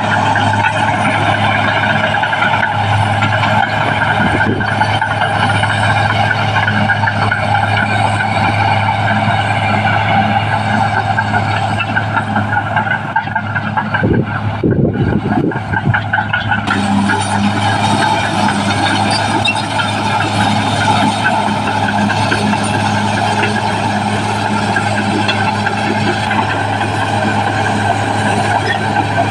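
Caterpillar D6R XL crawler bulldozer's diesel engine running steadily under work, with a brief patch of irregular knocking and creaking about halfway through.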